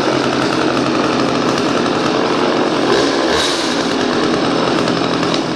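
McCulloch Mac 3516 two-stroke chainsaw running steadily, then stopping at the very end, its sound falling away within half a second.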